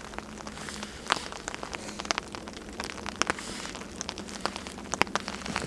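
Rain falling on a tarp overhead, a steady patter with many irregular sharp ticks of single drops, mixed with the crackle of a small, freshly lit cedar fire.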